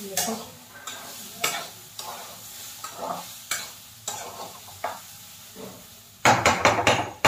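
A steel spatula scraping and stirring mung dal as it roasts in a kadai over a gas flame. The strokes come irregularly, about one every second, with a faint sizzle under them, then a quick run of five or six loud scrapes near the end.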